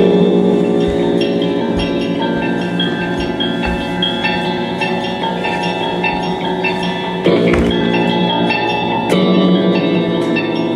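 Live free-improvised music: bell-like struck tones ringing over a bed of sustained pitches, with louder struck entries about seven and nine seconds in.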